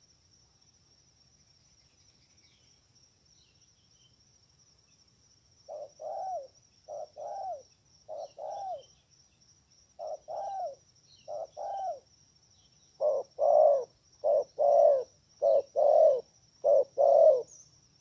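Spotted dove cooing: a series of about nine two-note coos beginning about six seconds in, the last four louder and fuller. Under it runs a steady high insect buzz.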